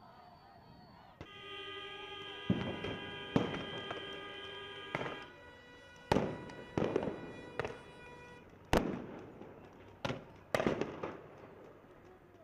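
Sharp bangs of riot-police crowd-control munitions, about a dozen irregularly spaced shots starting about two seconds in, each with a short ringing tail. Over the first few seconds a steady horn-like tone sounds along with them.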